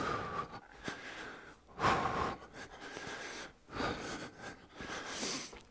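A man breathing hard close to a headset microphone during a warm-up exercise: a run of separate breaths about a second apart, the loudest about two seconds in.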